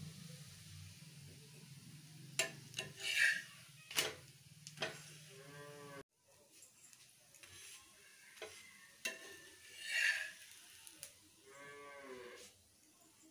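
A steel spatula scrapes and knocks on an iron tawa as a chakuli pitha is turned and lifted off. There are scattered sharp clatters, and twice a short drawn-out pitched sound. A low steady hum runs under the first half and stops at a cut about six seconds in.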